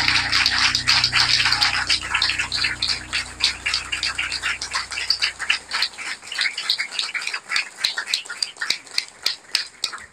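Congregation applauding: dense hand clapping that thins to scattered claps in the second half. A low held note from the backing music fades out over the first half.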